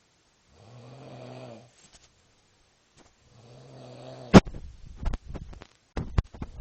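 A man asleep drunk, snoring: two snores about a second long, a few seconds apart. The second snore is cut off by a loud sharp knock, followed by a quick run of quieter clicks and knocks.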